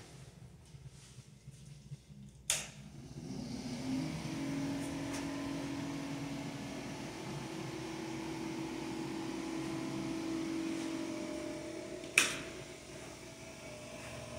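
A sharp click, then a small motor or fan starts and runs with a steady hum that builds for a second or so. Another sharp click comes about two seconds before the end, after which the hum is quieter.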